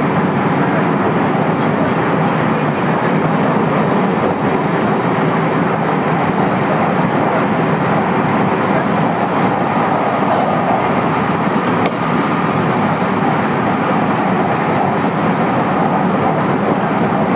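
Running noise inside the cabin of a JR West 223 series 5000 subseries electric multiple unit at speed: a steady, even rumble of wheels on rail with no change in pace.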